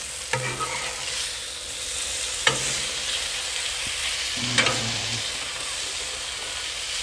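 Chicken and shredded hash browns sizzling steadily on a Blackstone flat-top griddle. A metal spatula scrapes and clinks against the steel cooktop three times as the chicken pieces are turned over.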